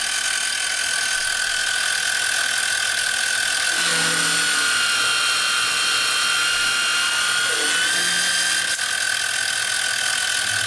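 CNC-driven PM-25MV milling machine cutting aluminum with a roughing end mill at 15 inches a minute: the spindle and cutter make a steady high machining whine. The cutting tones shift in pitch from about four to eight seconds in.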